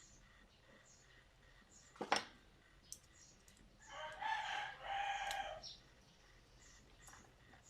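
A rooster crowing once in the background, a pitched call lasting under two seconds near the middle. It is preceded by a single sharp click, likely from handling the board and its plastic spacers.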